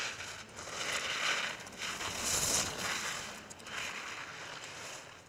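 Ski edges carving and scraping on firm snow through giant slalom turns: a hiss that swells with each turn, loudest about two and a half seconds in, and fades as the skier moves away.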